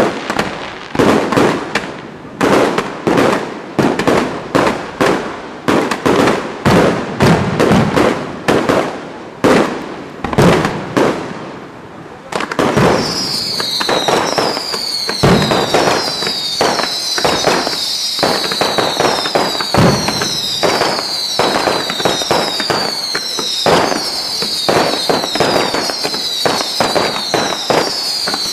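Fireworks display: a rapid barrage of shell bursts and crackling bangs, several a second, easing briefly about twelve seconds in. After that, repeated falling whistles, about one a second, sound over the continuing bangs.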